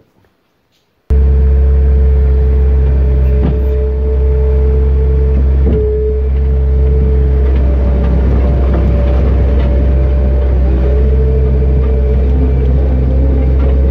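Engine of a front-loader farm machine running steadily, heard loud from inside its cab as it drives, with a deep hum and a steady higher whine. The sound starts abruptly about a second in.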